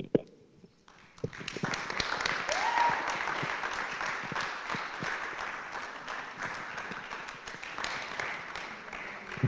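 Audience applauding: the clapping starts about a second in, is fullest in the next couple of seconds and slowly thins out, with one short rising call from the crowd near the start.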